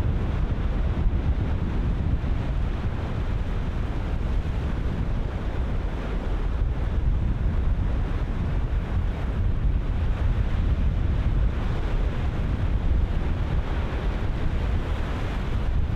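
Ocean surf breaking steadily, with strong wind buffeting the microphone and rumbling in the lows.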